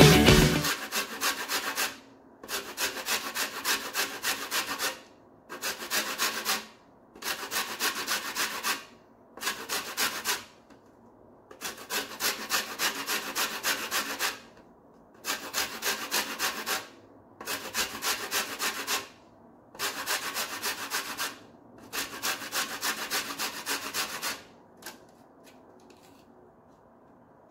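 Quick rhythmic rasping strokes of a kitchen utensil working an ingredient over a salad bowl, about four strokes a second, in runs of one to three seconds with short pauses. They stop near the end.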